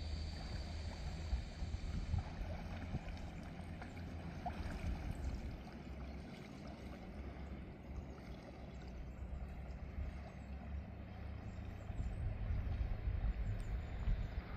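River water gurgling and rippling, with a low rumble underneath that grows louder near the end.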